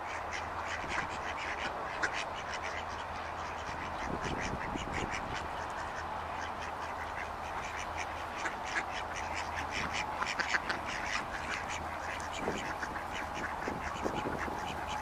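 A flock of ducks quacking, many short calls overlapping without a break, over a steady low hum.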